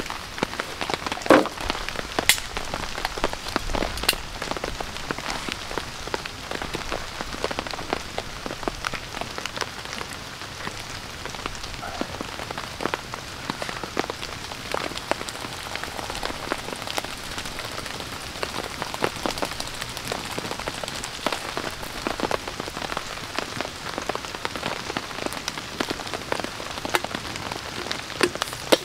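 Rain falling on a tarp shelter: a steady hiss of rain with many sharp drop taps scattered throughout.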